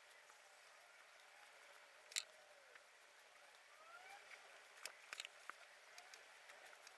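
Near silence: faint scratching of a small watercolour brush dabbing on paper, with one sharp click about two seconds in and a few small ticks around five seconds in.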